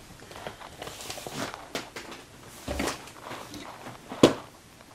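Footsteps and small handling noises of objects being moved around in a small room, with a dull thump partway through and a sharp knock near the end.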